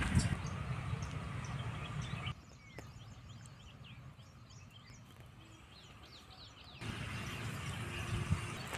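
Outdoor field ambience with a low rumble on the microphone that cuts out abruptly about two seconds in. A quieter stretch follows in which small birds chirp repeatedly, and then the rumble cuts back in abruptly near the end.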